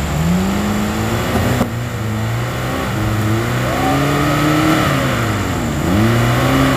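Off-road 4x4 engine revving, its pitch rising and falling as the throttle is worked, dropping sharply about six seconds in and then climbing again.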